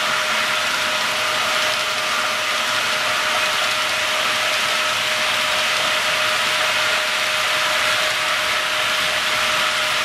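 HO scale model double-stack freight cars rolling steadily along the track: an even rolling noise of small wheels on the rails, with a faint steady hum underneath.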